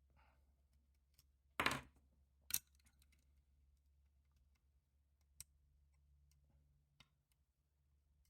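Faint clicks and ticks of a lock pick working the pins of a custom pin-tumbler lock. Two sharper, louder clicks come about one and a half and two and a half seconds in, with a few lighter ticks later.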